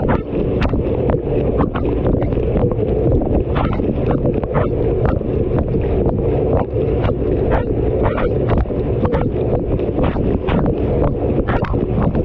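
Washing machine running with a GoPro camera tumbling inside the drum: a steady loud churning rumble with irregular knocks, one or two a second, as the camera is thrown against the drum.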